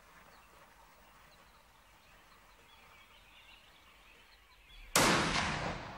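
Quiet open-air background with faint bird chirps, then a single loud rifle shot from a scoped hunting rifle about five seconds in, its echo dying away.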